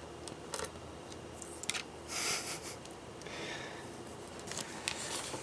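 Small sharp clicks and handling noises of hands and a screwdriver working on a laptop's screen assembly, with a short hissing rush about two seconds in.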